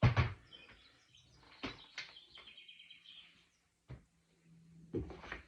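Vacuum-cleaner packaging handled during unboxing: a loud thump as something heavy is set down, then several short knocks and scrapes of cardboard and parts, with a brief run of high squeaks in the middle.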